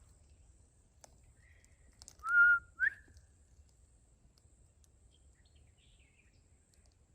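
A two-note whistle about two seconds in: a clear note held for about half a second, then a short rising slur.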